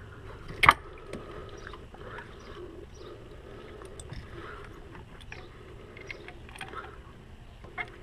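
Pliers clicking and scraping on a spring hose clamp as it is squeezed open to fit the coolant reservoir's bottom hose, with one sharp loud click about a second in and lighter clicks after.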